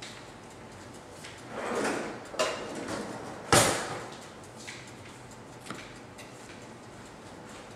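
Kitchen handling noises: a brief sliding scrape about two seconds in, a click, then a single sharp bang about a second later, followed by a few faint ticks.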